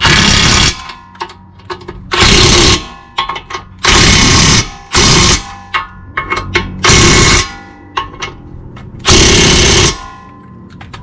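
Impact wrench run in six short bursts of about half a second to a second each, driving in the bolts that fasten the lower ball joint to the control arm, with small clicks of tool handling between bursts.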